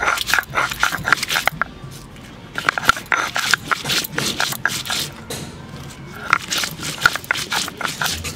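Stone roller grinding dry red chilies on a pitted stone grinding slab (shil-nora), with gritty scraping and crunching strokes in three runs separated by short pauses.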